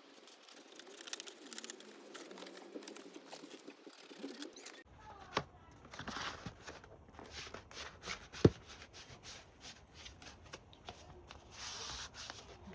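Carpet scraps being rustled and handled, with scraping and scattered small clicks, and one sharp knock about eight and a half seconds in.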